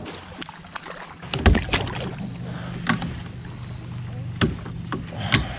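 Electric trolling motor on a kayak running with a steady low hum, which grows stronger about a second and a half in. Sharp knocks and clicks of gear being handled against the plastic hull are heard over it, the loudest just after the hum grows.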